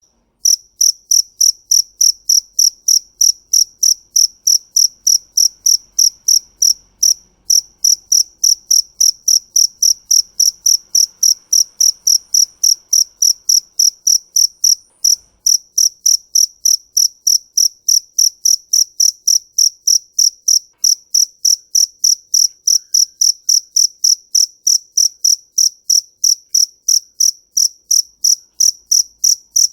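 A cricket chirping in a steady, even rhythm, about three high-pitched chirps a second, pausing briefly twice.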